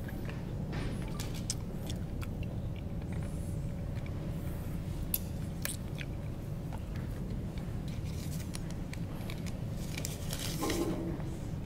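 Steady low hum of room noise, with faint scattered clicks and a short rustling noise near the end.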